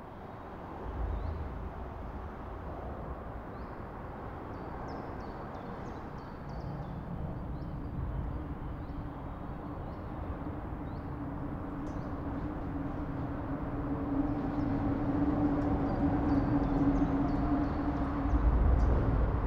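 Steady road traffic noise that slowly grows louder, with a heavy vehicle's drone swelling in the second half and fading near the end. Small birds chirp over it.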